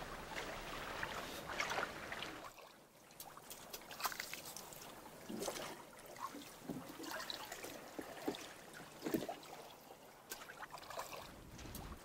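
Water lapping and splashing against the hull of a small boat in irregular splashes. A low rumble under it drops away about two and a half seconds in.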